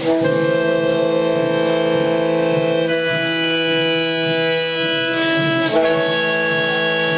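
Wind band of brass and woodwinds playing long sustained chords, moving to a new chord about three seconds in and again near six seconds.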